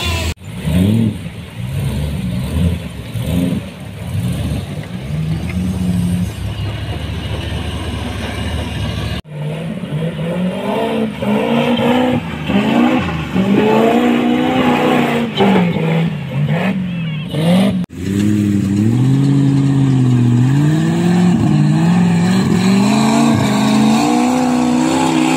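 V8 engine in a Suzuki Jimny revving up and down over and over, its pitch rising and falling. The sound breaks off abruptly twice and picks up again.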